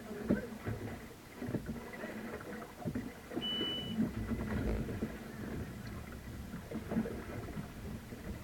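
Boat noise on open water: an uneven low rumble of water and wind with irregular knocks, and a brief high beep about three and a half seconds in.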